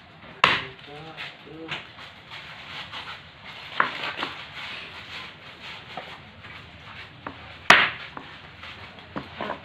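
A large kitchen knife chopping a raw chicken carcass apart on a chopping board: sharp chops at irregular intervals, the two loudest about half a second in and about three-quarters through, with lighter strokes between.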